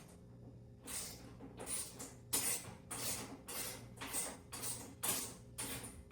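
Hand ratchet wrench being worked back and forth to run down a bolt, a rasping burst of ratchet clicks on each stroke, about two strokes a second.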